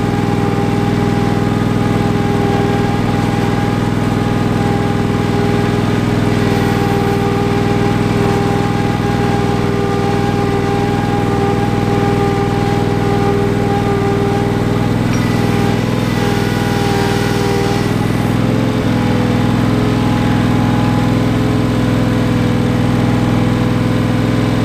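Ingersoll 7020L garden tractor's engine running steadily as the tractor drives, heard from on board the machine. Its pitch steps up slightly about two-thirds of the way through.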